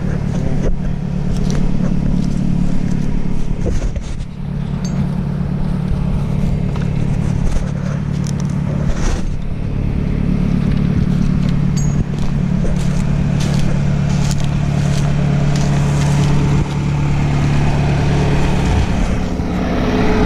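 Gas chainsaw running steadily under load, cutting through a felled hardwood log.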